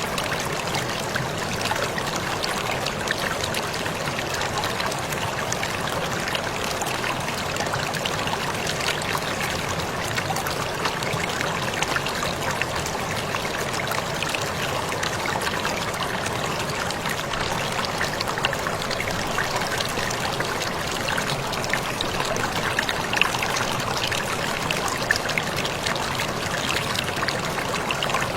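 Waterfall running steadily: a constant rush of falling water with fine splashing and trickling throughout.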